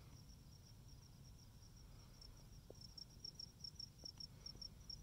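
A cricket chirping faintly in an even rhythm, about five chirps a second, a little stronger from about three seconds in.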